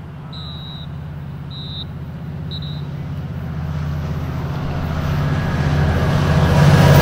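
Amtrak Pacific Surfliner train approaching behind an EMD F59PHI diesel locomotive: the low, steady drone of its engine grows steadily louder as it nears.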